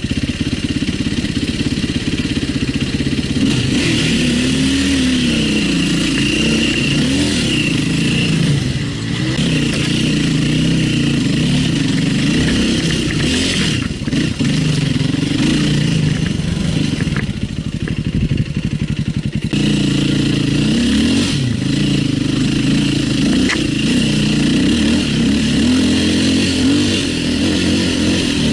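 Enduro dirt-bike engine revving up and down over and over, the rider working the throttle to climb.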